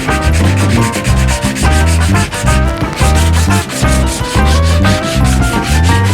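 Rhythmic scraping or rubbing like sandpaper on wood, mixed with background music that has a steady bass beat.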